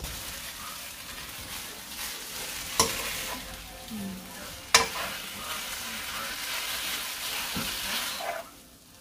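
Glass noodles and vegetables sizzling in oil in a wok as they are stirred and tossed with a spatula, with two sharp knocks against the pan about three and five seconds in. The sizzle drops away shortly before the end.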